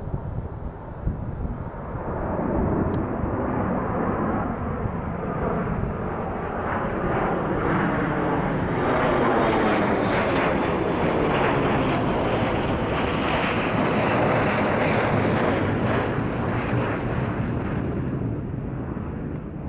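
Bombardier Global 5000 business jet on approach to land, its twin Rolls-Royce BR710 turbofans passing low overhead: the roar builds over the first few seconds, is loudest through the middle with a sweeping, shifting tone as it passes, then fades as the jet flies away.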